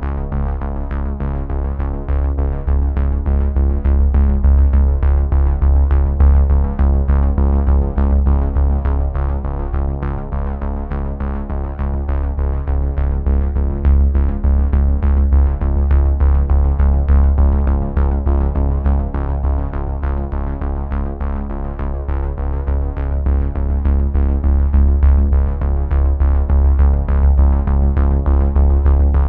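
Instrumental background music with a steady pulsing beat over sustained low bass notes.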